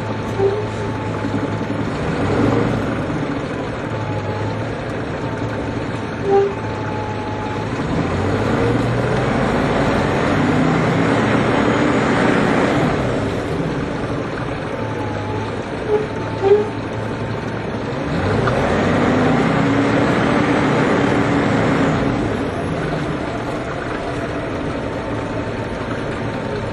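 Eagle Model 10 coach's diesel engine pulling the bus along, speeding up twice with the engine pitch rising, about a third of the way in and again about two-thirds of the way in, then settling back. A few brief sharp sounds stand out over it.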